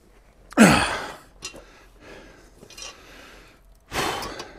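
Gear puller forced onto the seized blade adapter of a 2003 Honda HRR216 lawnmower breaking loose with a loud sudden bang about half a second in, then quieter ratchet and metal clicks. A heavy breath out near the end.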